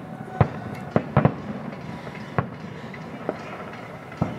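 Distant fireworks going off: about seven sharp bangs at irregular intervals, with a quick double bang a little over a second in.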